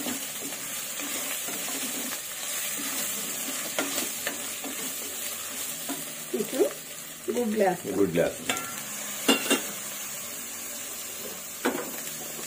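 Masala sizzling and frying in an aluminium pressure cooker as a wooden spatula stirs and scrapes it, with a few sharp knocks of the spatula against the pot.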